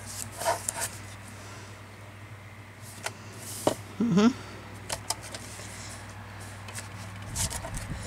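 Paper and craft pieces handled on a tabletop: scattered light taps, clicks and rustles as pieces are shifted and lined up, with a brief murmured hum of voice about four seconds in and a steady low hum underneath.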